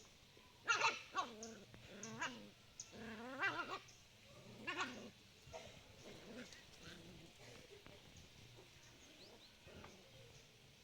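Puppies yelping and whining while fighting: a few high, wavering squeals and yelps in the first five seconds, one drawn out for nearly a second, then only faint scuffling sounds.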